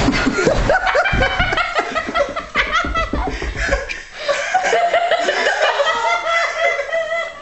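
Hard, sustained laughter, with low thumps during the first three seconds as a man tumbles off a running treadmill.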